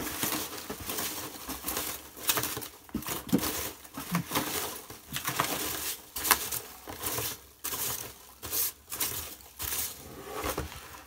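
Shipping box contents and packing material being dumped out and rummaged through: irregular rustling and crinkling with scattered sharp knocks and clicks.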